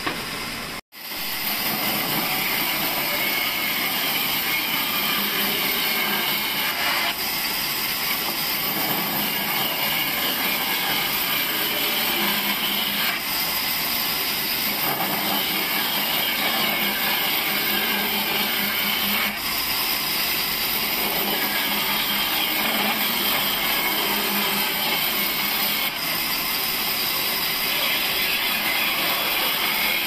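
Large vertical band saw running and ripping a pine board, a steady loud machine noise with a strong hiss, after a brief break about a second in.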